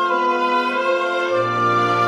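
Background music with slow, sustained orchestral string notes; a low bass note comes in just after halfway through.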